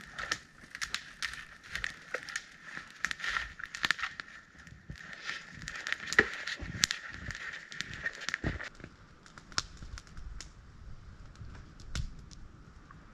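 Open wood fire of dry sticks crackling, with many sharp pops and snaps scattered throughout.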